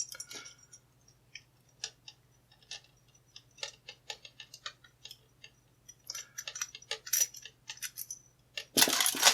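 Small metallic clicks and ticks of a hex key turning a grub screw out of the side of a steel padlock body, scattered at first and bunching into a quick rattle of clicks near the end.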